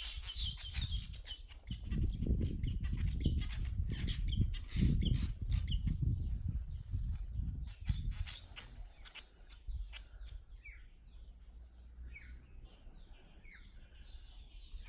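Weaver birds giving short, repeated chirps, clearest in the second half. A low rumble with scattered clicks on the microphone runs through the first half.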